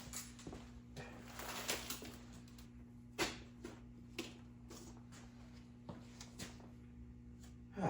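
Faint handling noises: scattered taps, clicks and rustles, with a longer rustle about one and a half seconds in, over a steady low hum.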